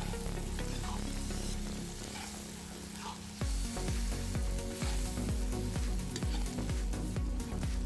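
Meat, onion and carrot sizzling in hot oil in a cast-iron kazan as a metal skimmer stirs them, making a steady hiss. Background music plays, and its low beat comes in about halfway through.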